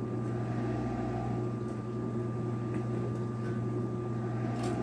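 Steady low machine hum with a thin constant higher tone above it, and a few faint light clicks as scissors are worked at the end of a stove-door gasket.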